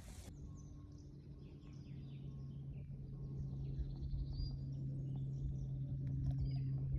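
Small birds chirping and singing, scattered short high calls, over a steady low hum that slowly grows louder.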